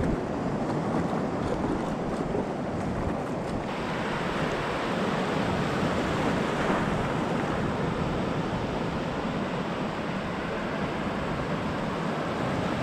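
Surf washing and breaking in the shallows, with some wind on the microphone; the rushing turns brighter and hissier about four seconds in.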